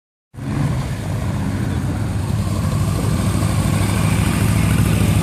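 Motorcycle engine running with a steady low rumble as a cruiser motorcycle rides past close by.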